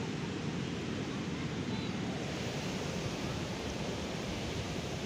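Wind buffeting a phone's microphone: a steady, low rush of noise.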